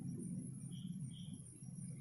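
Bangles on a working wrist clinking faintly a few times over a low steady hum.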